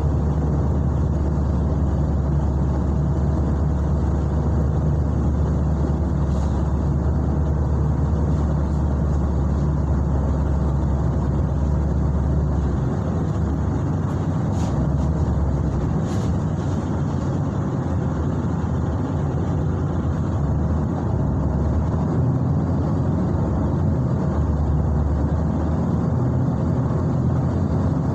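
Steady low rumble of a motor vehicle running, with a few faint clicks.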